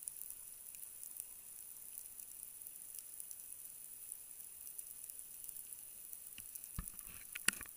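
Faint underwater reef crackle, a steady sizzle of countless tiny clicks from snapping shrimp, recorded underwater. A few louder knocks come near the end.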